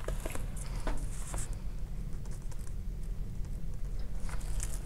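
A few light clicks, then a pen writing on notebook paper, a faint scratching.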